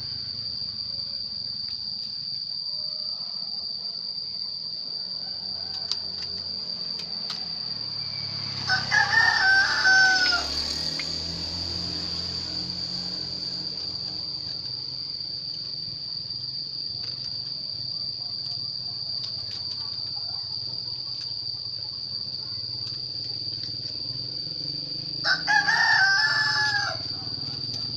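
A rooster crows twice, each crow about two seconds long, once about nine seconds in and again near the end, over a steady high-pitched insect drone.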